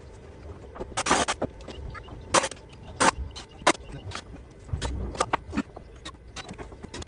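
A rapid, irregular series of sharp knocks and clicks from work on a wooden deck frame, a dozen or more, the longest and loudest about a second in.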